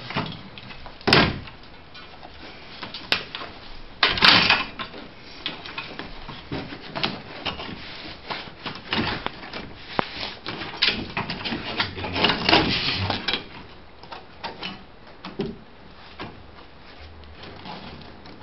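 Hands working a carpet and its stretching tool: scattered knocks and clicks, with louder scraping rustles of carpet being moved over the padding, the longest from about twelve to thirteen seconds in.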